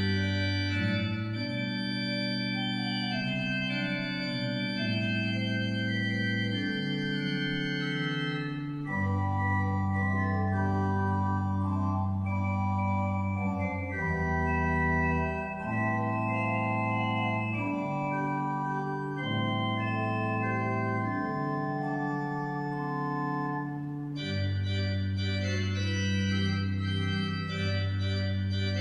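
Organ music: slow, sustained chords over held low bass notes, the harmony changing every second or few seconds.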